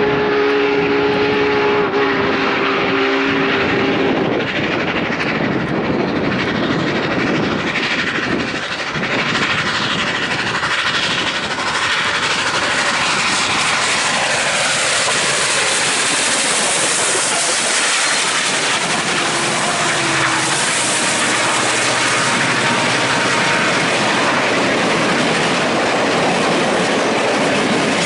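Steam locomotive whistle blowing a steady chord for about the first four seconds. Then a Union Pacific steam-hauled passenger train passes close by with loud, continuous running noise, ending with the cars' wheels clicking over the rail joints.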